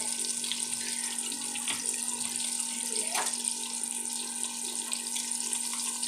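Battered chicken balls deep-frying in hot oil: a steady sizzle and bubbling, with a faint click or two.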